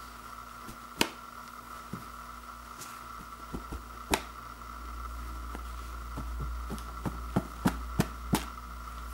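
2-ply toilet paper handled and tugged taut between two hands, giving sharp papery snaps: a few single ones, then a quick run of about five near the end, over a steady background hum.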